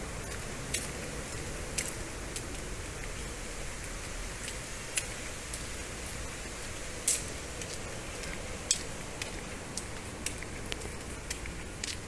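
Steady outdoor street ambience, an even hiss, with scattered short sharp clicks about once a second.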